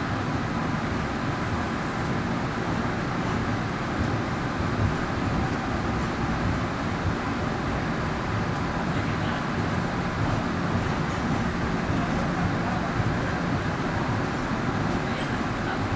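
Steady running rumble of an MBTA Green Line light-rail car in the subway, heard from inside the car, with a faint hum beneath it.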